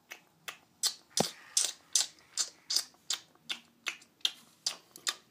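Small sharp taps repeating steadily, about three a second.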